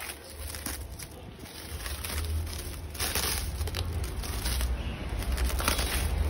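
Clear plastic stretch wrap crinkling and crackling as it is peeled and pulled off a new air fryer, louder from about halfway through.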